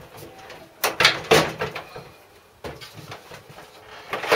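A few sharp metallic knocks and clatters from inside a washing machine's steel cabinet as the drum is pulled to release its top suspension springs, the loudest about a second in.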